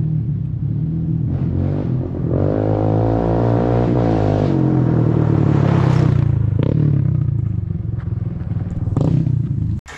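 Honda TRX250X ATV's single-cylinder four-stroke engine running through an aftermarket DG exhaust with a low growl, blipped up on the throttle three times. The longest rev comes about two to four seconds in, and the sound cuts off just before the end.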